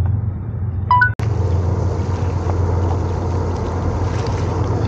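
A steady low hum, a brief beep about a second in, then an abrupt cut to steady wind noise buffeting the microphone.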